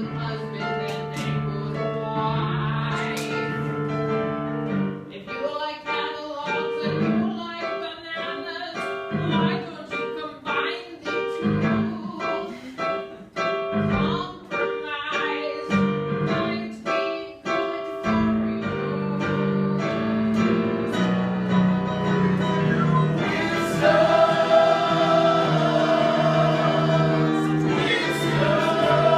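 Music: a song with choir-like singing over instruments, choppy and rhythmic at first, then swelling into long held chords that grow louder toward the end.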